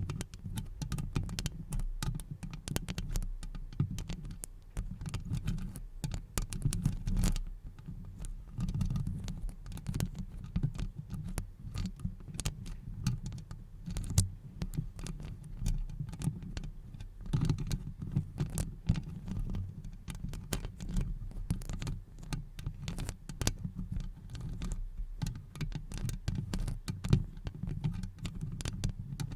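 Fast ASMR trigger sounds made close to the microphone: rapid, irregular taps and clicks over a low rumble.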